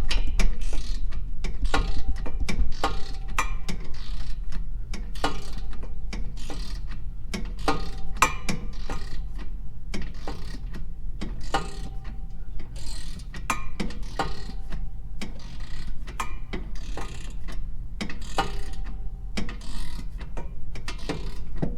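Hand ratchet wrench clicking in short, irregular runs while exhaust mounting bolts are tightened.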